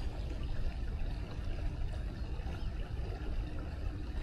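Wind buffeting the microphone: a steady, uneven low rumble with a light hiss of open air over it.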